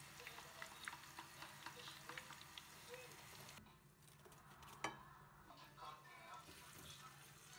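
Faint stirring of food in a frying pan, with small utensil clicks over a light sizzle; the sizzle drops away about halfway through, and there is one sharp clack a little later.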